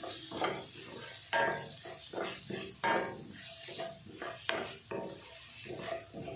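Wooden spatula stirring and scraping brinjal pieces around a stainless steel kadai in uneven strokes, over a light sizzle of oil as turmeric and sambar powder are sautéed with the brinjal.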